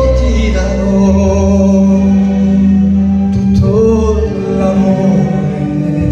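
Music with a man singing into a handheld microphone, holding long notes.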